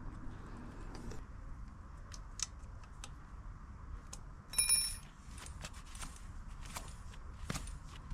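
Small metal clicks and clinks of tools and bicycle hub parts being handled, with one louder ringing metallic clink about four and a half seconds in.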